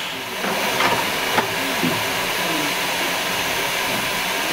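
Steam locomotive hissing steadily as it vents steam, with a single sharp knock about a second and a half in.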